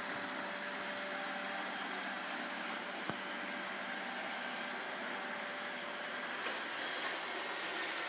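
An iRobot Roomba 770 robot vacuum running, a steady whir of its motor and brushes. A single sharp click about three seconds in.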